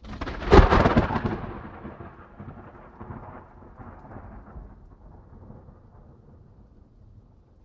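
A thunderclap: a sudden loud crack about half a second in, then a long rumble that slowly fades away.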